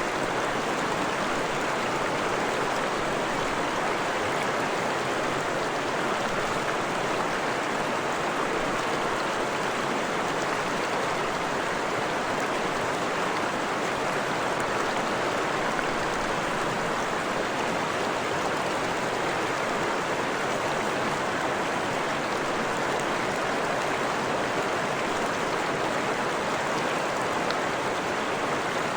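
Forest stream, water running and splashing over rocks in a steady, even rush.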